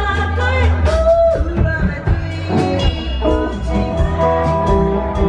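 Rock and roll band playing live: a woman singing lead over electric guitar and drums, with a strong, steady low end.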